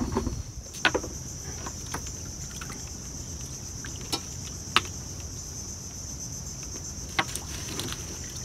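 A steady, high-pitched insect chorus drones throughout. A few sharp clicks and knocks are heard over it, about 1 s, 4 s, 5 s and 7 s in.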